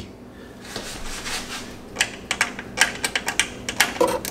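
Irregular light metallic clicks and clinks of a quarter-inch drive ratchet and sockets being handled. They are faint at first and get sharper and more frequent about two seconds in.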